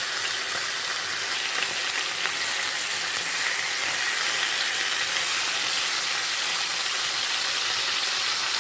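Seasoned chicken legs searing in hot oil over high heat, a steady sizzle as the pieces brown.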